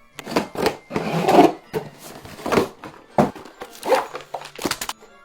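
An irregular series of sharp cracks and knocks, about ten in five seconds, some coming in quick clusters.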